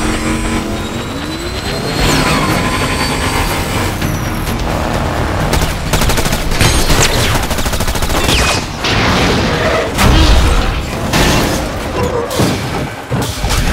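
Action-film chase sound mix: vehicle engines and whines, a rapid run of gunfire through the middle, and heavy booms and impacts, with music underneath.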